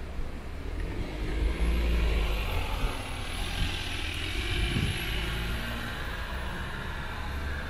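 Low rumble of a car engine and road noise heard from inside the car, swelling about one and a half seconds in and easing off again.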